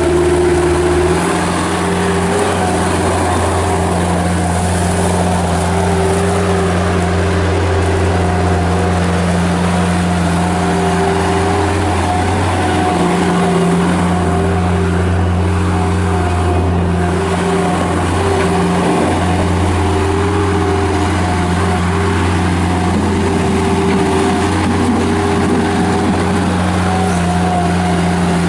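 Bobcat 751 skid steer loader's Kubota 1903 diesel engine running steadily as the machine is driven and worked, its note shifting slightly about a second in and a few times in the middle.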